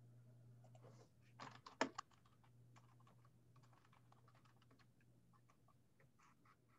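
Faint computer keyboard typing: a quick run of keystrokes about a second and a half in, then scattered lighter taps, over a low steady hum.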